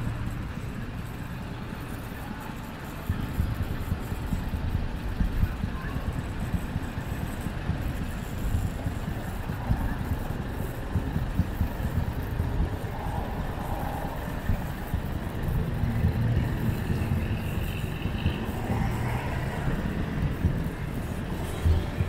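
Vehicle driving through town streets: a steady low rumble of engine and road noise, with frequent short knocks and bumps.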